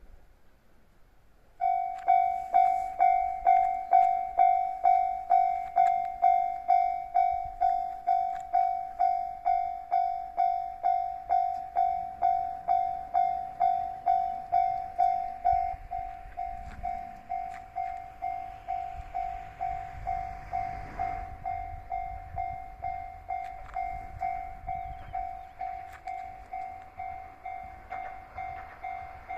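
Japanese level-crossing warning bell starts suddenly and rings a steady repeating ding at about two strikes a second, signalling an approaching train. About halfway through the bell drops in loudness and a passing train's low rumble swells, strongest partway through, then eases while the bell keeps ringing.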